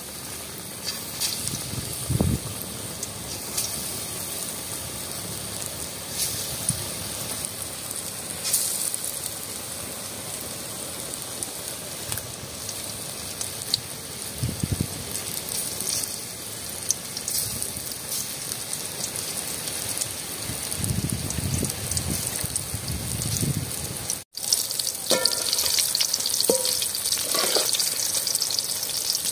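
Battered raw jackfruit bajji deep-frying in hot oil in a metal pan: a steady sizzle with scattered pops. Near the end a slotted spoon stirs the pieces, and the sizzle gets louder.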